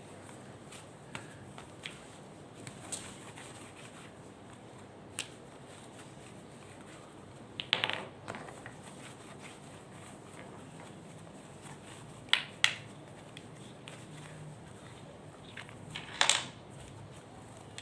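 Hands working slime made with clay, giving scattered short clicks and crackles; the loudest come about 8, 12 and 16 seconds in.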